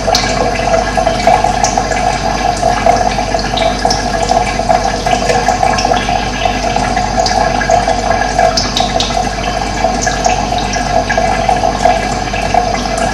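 Running water flowing and splashing in a steady, continuous rush, with a few brief high bird chirps scattered through it.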